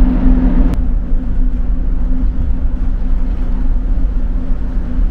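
Steady low drone of a large ferry's engines and machinery while it pulls away from the berth, with wind rumbling on the microphone. There is a click under a second in, after which the hiss drops a little.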